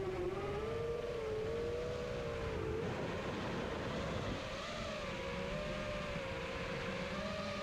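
5-inch FPV quadcopter's brushless motors and propellers whining steadily, the pitch wavering up and down with throttle as the quad is flown in to land.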